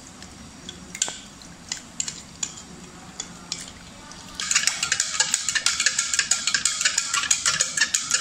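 A metal spoon stirring sugar into water in a glass jug, clinking against the glass now and then. About four seconds in, a much louder, fast, even rattle of clicks starts and goes on.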